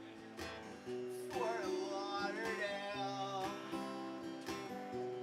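Acoustic guitar strummed in steady chords with a man singing along, one long wavering sung word starting about a second and a half in.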